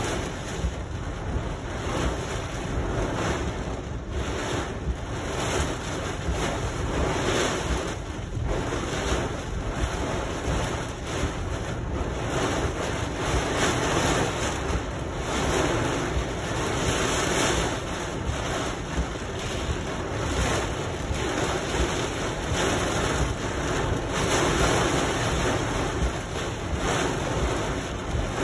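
Heavy rain falling on a car's roof and windshield, heard from inside the cabin as a steady, dense hiss.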